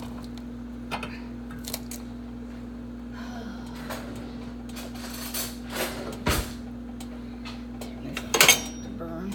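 Cutlery and dishes clinking and knocking as things are handled at a kitchen counter, a few scattered clinks with the loudest clatter near the end, over a steady low hum.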